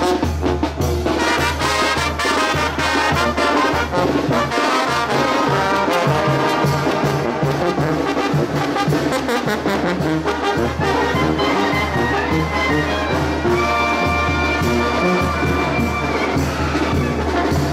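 A marching brass band of trumpets, trombones, saxophone and sousaphone playing live, the sousaphone keeping a steady pulsing bass line. The horns hold one long high note about fourteen seconds in.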